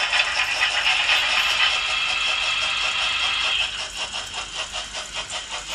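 Märklin H0 model freight trains rolling past, their wheels clicking over the track in a rapid, even rhythm. A high, steady whine sits over the clicking until about three and a half seconds in.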